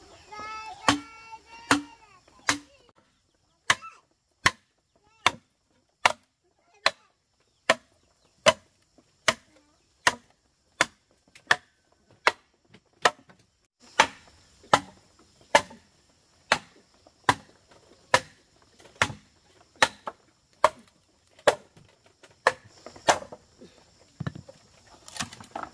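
Steady chopping on wood: sharp, evenly spaced blows, a little more than one a second, repeating throughout.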